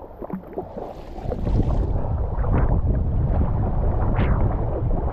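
Choppy lake water slapping and splashing at the bow of a paddled boat, with wind buffeting the microphone as a loud low rumble from about a second in.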